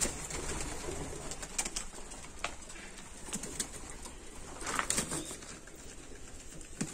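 Domestic pigeons cooing softly, with a few scattered light clicks and rustles.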